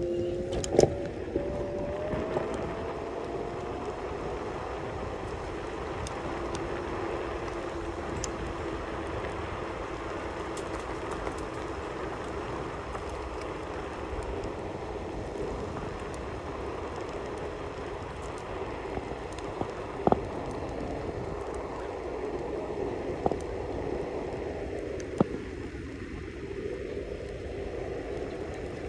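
Wheels rolling along a paved trail with steady road and wind noise, over a steady whine that rises in pitch during the first few seconds. A sharp knock comes about a second in, as the wheels cross the joint at the end of a footbridge, and a few more knocks follow near the middle and later on.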